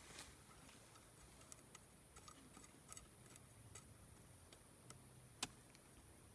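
Faint, irregular small clicks and ticks over near silence, with one sharper click about five seconds in.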